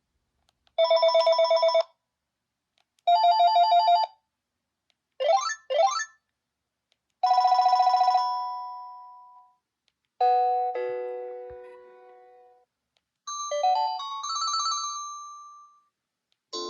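Panasonic KX-TGA454SK cordless phone handset playing its ringtones one after another, each a short sample with a silent gap between. There are two electronic trilling rings of about a second each, two quick rising sweeps, and a longer trill that fades out, followed by two short melodic chime tunes whose notes ring and die away.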